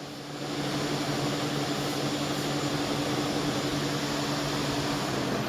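A steady rushing hiss of blowing air starts about half a second in and stops shortly before the end, over a low steady electrical hum.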